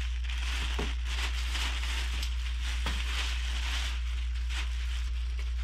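Clear plastic wrapping crinkling and rustling continuously as it is pulled off a new fishing rod, over a steady low hum.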